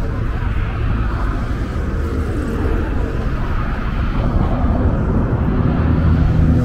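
Road traffic on a multi-lane road: a steady rumble of car engines and tyres as cars pass close by, growing slightly louder near the end.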